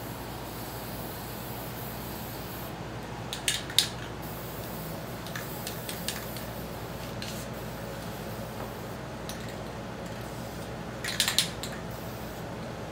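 Aerosol spray-paint can giving short quick squirts, a cluster of about three about three and a half seconds in and another cluster about eleven seconds in. Underneath is a steady background hum.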